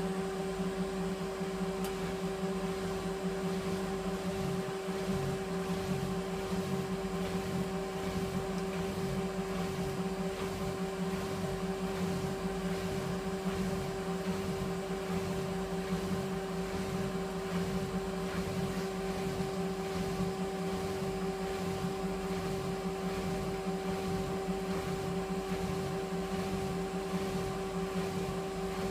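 Candy Aquamatic 2 compact washing machine running empty on a Cotton 95 descaling wash: a steady mechanical hum with a low pulse repeating about three times every two seconds.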